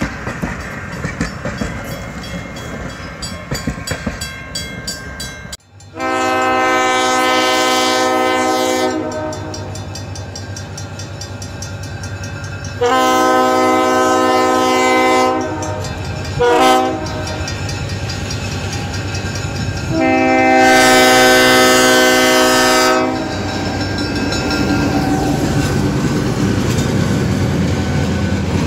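Passenger coaches rolling by with wheel clatter. Then an EMD SW9 diesel switcher's air horn sounds the grade-crossing signal: long, long, short, long, a warning that the train is approaching a road crossing. After the horn comes the train's rumble and wheel clatter as it reaches the crossing.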